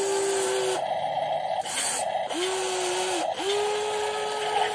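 WLtoys 16800 RC metal excavator's electric motors whining as the boom and arm move. The whine stops and starts three times, with a rougher mechanical grinding in the gaps.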